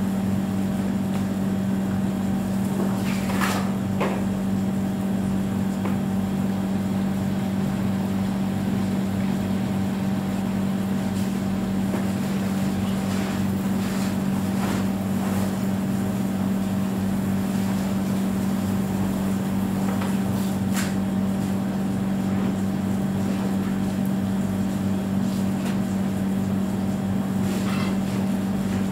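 A machine's steady, unchanging hum, with a few light knocks and clicks here and there.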